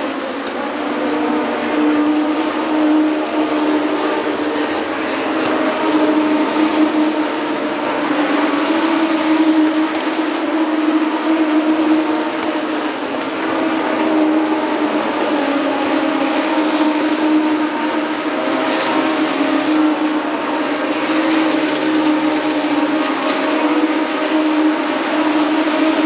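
A field of Legends race cars running at speed on an oval track, their Yamaha motorcycle engines making a steady, continuous drone that swells a little as the pack goes by.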